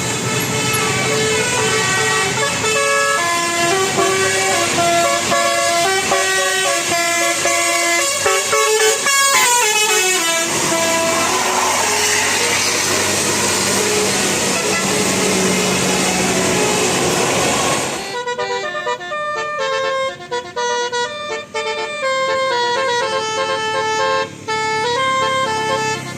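Indonesian 'telolet basuri' bus air horn playing a melody of stepping held notes, over the engine and road noise of passing buses. About 18 seconds in, the sound changes abruptly to a cleaner run of notes with almost no road noise.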